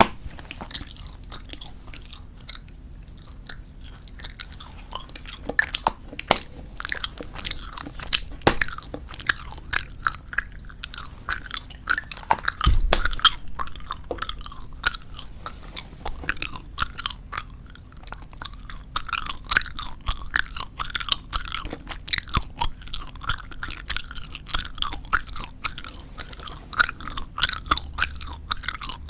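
Close-miked chewing of soft bubblegum (squeeze-tube gum), with rapid, irregular wet smacking and clicking of the mouth. There is one louder low thump a little before halfway.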